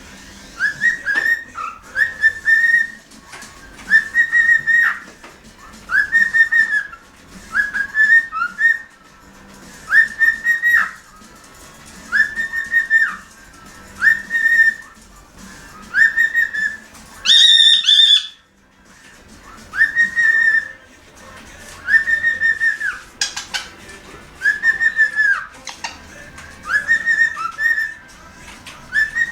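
Cockatiel whistling a repeated short phrase, a clear note about every two seconds, with one higher-pitched note a little past the middle.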